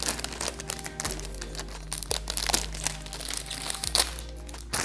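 Thin clear plastic protective wrap crinkling and rustling as it is peeled off a computer and handled, in a run of irregular crackles.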